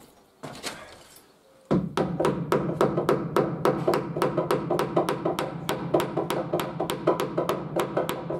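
A couple of light knocks, then background music with a quick, steady percussive beat comes in about two seconds in.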